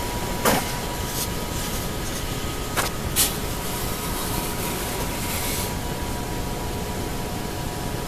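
Steady mechanical hum with a thin, constant high whine from the powered-up CNC mini mill, broken by three sharp clicks: one about half a second in, then two close together around three seconds in.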